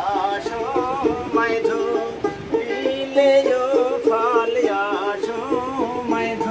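A man singing a Baul folk song with a wavering, ornamented voice, accompanying himself on a plucked dotara that repeats a quick, steady figure.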